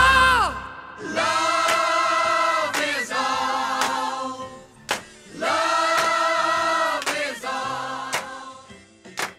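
Music: loud music fading out in the first half-second, then a choir singing held, wavering notes in four short phrases, with a couple of sharp percussive hits.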